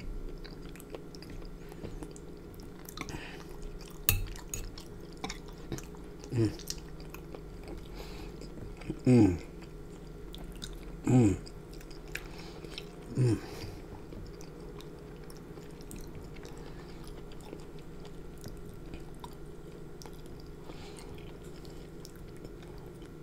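Close-miked chewing of seafood in thick Alfredo sauce, with small clicks of a fork against a glass baking dish. There are five short falling hums of enjoyment in the first half.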